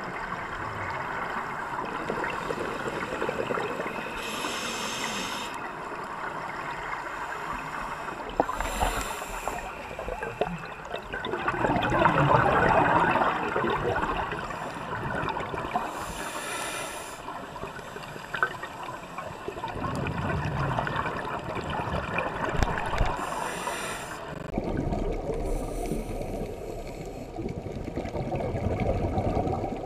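Scuba divers breathing through regulators, recorded underwater: a continuous bubbling gurgle of exhaled air, with hissing exhalation bursts every few seconds. The bubbling grows louder for a few seconds near the middle.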